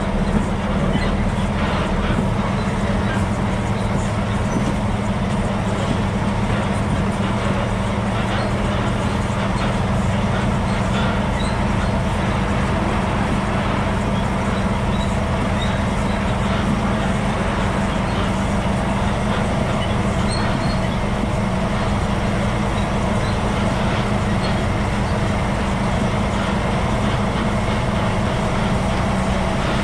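A heavy logging truck's diesel engine and road noise running as a steady, unbroken drone while the truck drives along at an even speed.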